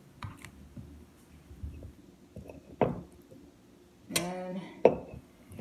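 Quiet handling of ripe bananas and a glass jar on a wooden table: a few faint taps, then one sharp knock a little under three seconds in. About four seconds in a woman makes a brief hum, followed by another small click.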